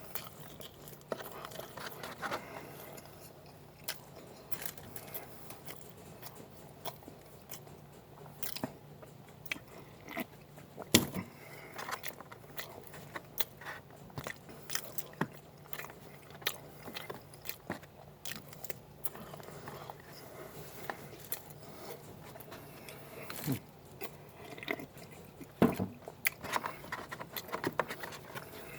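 A person biting and chewing French toast, bacon and egg close to the microphone, with a steady run of short clicks and crunches. The sharpest come about eleven seconds in and again near the end.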